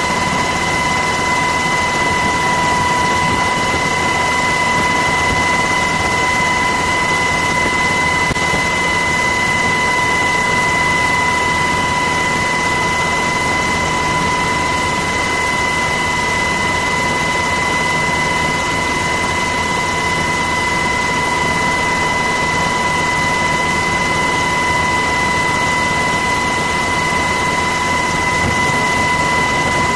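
Steady aircraft engine noise: a constant roar with a high, unchanging whine.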